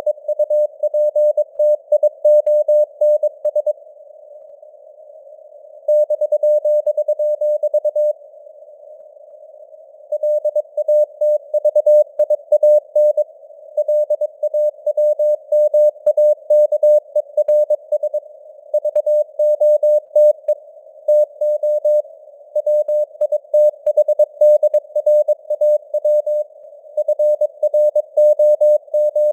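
Morse code sent at 22 words per minute as a single-pitch tone keyed on and off in rapid dots and dashes. It sits over a narrow band of simulated radio hiss, and the signal strength varies. Two pauses of about two seconds break it in the first third.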